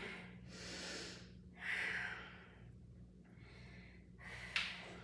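A woman breathing audibly as she catches her breath after exertion: a few slow breaths in and out, with a short click near the end. A faint steady hum runs underneath.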